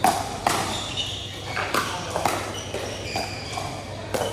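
Pickleball paddles striking a plastic pickleball, several sharp pops during a rally with the loudest at the start, echoing in a large indoor hall, over faint background voices.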